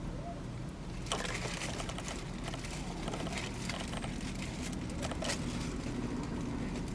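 Close-up chewing of a chopped cheese sandwich: irregular small wet clicks and crackles, starting about a second in, over a low steady hum.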